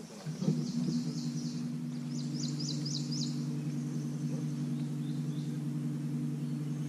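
Electric trolling motor on the bow of the bass boat, running with a steady low hum that starts about half a second in. A bird gives a quick run of about five high chirps partway through.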